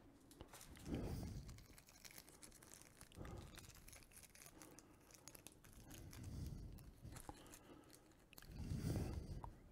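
Faint handling noises: small clicks and rustles as small metal pen-kit parts and calipers are handled, with a few soft low thumps about a second in, around the middle and near the end.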